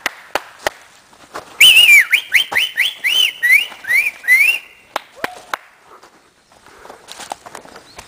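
A person whistling a quick run of about eight loud swooping notes, each rising and falling, after a few sharp clicks. A single short falling note follows a moment later.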